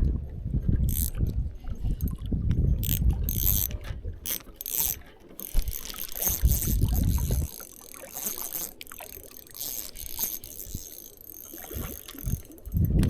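Spinning reel being worked during a trout fight: mechanical clicking and gear noise as the line is brought in, with a low rumble through the first half.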